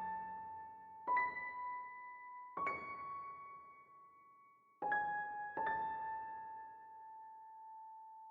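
Background music: a slow piano melody, four single notes struck one or two seconds apart and left to ring out, the last one held long.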